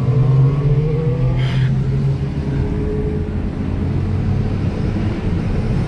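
Car engine pulling at road speed with low road rumble, heard from inside the cabin; the engine note rises slightly in the first second, then holds steady.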